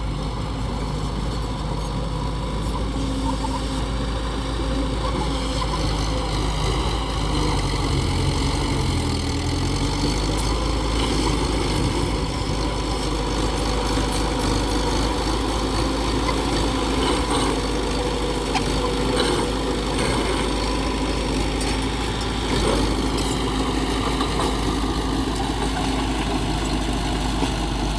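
Diesel engines of heavy earthmoving machinery (dump trucks and a bulldozer) running steadily. The engine note dips and rises once about nine seconds in.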